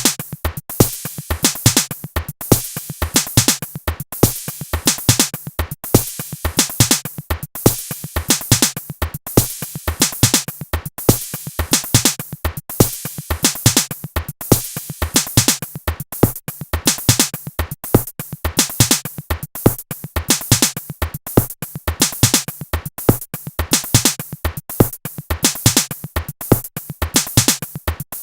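Electronic dance music with a steady, fast drum-machine beat and synthesizer.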